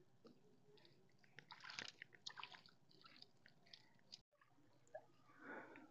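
Near silence, with a few faint wet squelches and small splashes as small fish are handled in the wet bottom of a wooden canoe and tossed back into the water.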